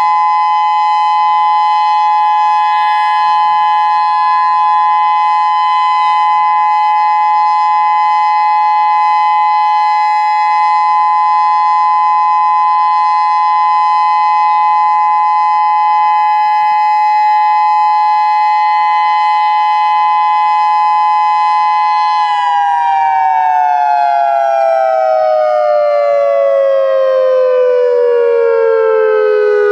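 Federal Signal Modulator 6024 electronic outdoor warning siren sounding a loud, steady two-note tone. About 22 seconds in, the tone slides steadily down in pitch as the siren winds down at the end of its test signal.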